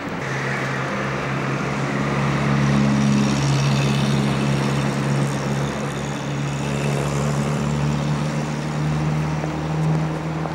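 A steady low engine drone, a running motor holding an even pitch, over a wash of outdoor street noise.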